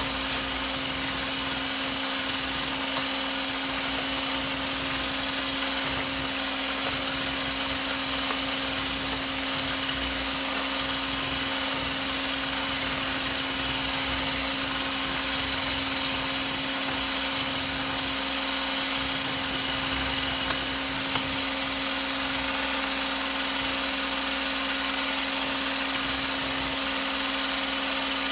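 Handheld electric frother running steadily, its small coil whisk spinning in a bowl of lotion mixture to whip it thicker. It gives an even motor hum with a high hiss.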